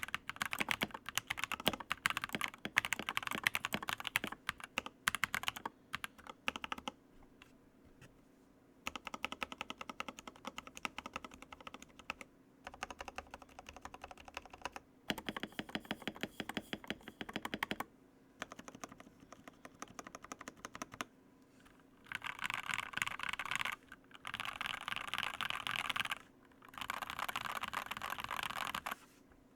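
Typing on a mechanical keyboard with pre-lubed Kailh Novelty Cream linear switches: rapid, clacky keystrokes in runs separated by short pauses. The runs grow faster and denser in the last several seconds.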